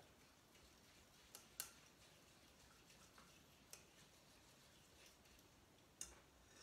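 Near silence with four faint short clicks of kitchen things being handled at a saucepan on the stove, the loudest about a second and a half in.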